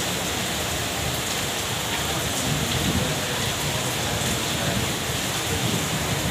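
Heavy monsoon rain falling steadily on waterlogged brick paving and grass.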